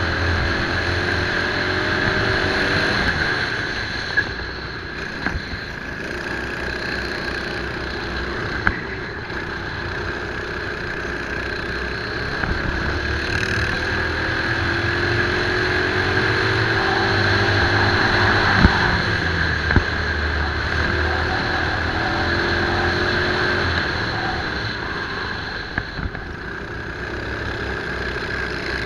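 Racing kart engine heard from the kart's own onboard camera at racing speed, its pitch climbing slowly along the straights and dropping back for the corners. A few sharp knocks stand out.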